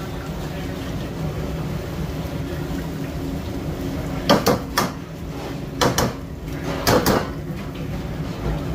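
Steady rumble of a gas wok burner, with three pairs of sharp metal clacks in the middle as a steel ladle scoops seasoning and knocks against the wok.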